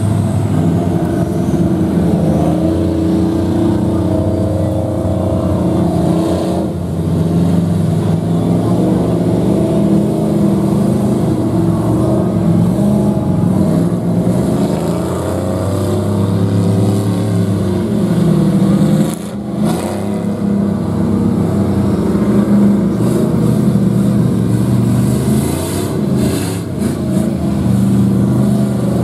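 Engines of several lifted mega trucks and side-by-sides running together as they drive through muddy water holes, the pitch rising and falling as they are throttled. The sound dips briefly about 19 seconds in.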